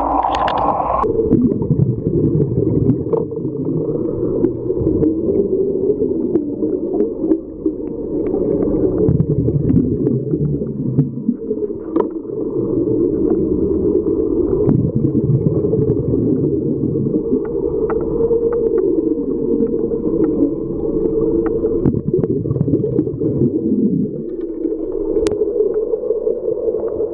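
Underwater sound picked up through a camera housing: a steady muffled rumble with wavering tones, nearly all of it low in pitch. A brighter hiss at the start stops abruptly about a second in.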